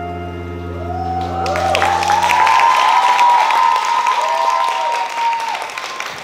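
Orchestral music holding its final chord, which dies away a couple of seconds in, as an audience breaks into applause and high cheering about a second and a half in, carrying on to the end.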